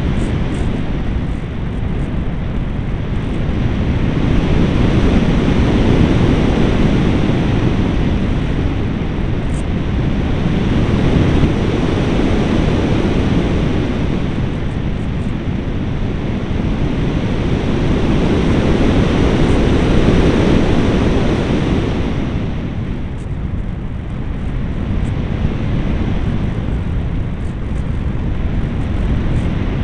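Wind rushing over the onboard camera of a flying RC foam glider (AXN Floater), a loud steady rush that swells and fades every several seconds as the plane banks and changes speed, easing most about three quarters of the way through.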